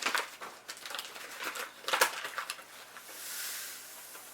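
Granulated sugar being measured into a measuring cup: a few light knocks and scrapes, then a soft hiss of pouring sugar about three seconds in.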